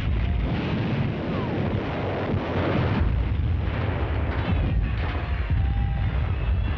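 Battle noise of a fire-and-movement training exercise: a continuous, heavy rumble of gunfire and blasts, with no clearly separate single shots.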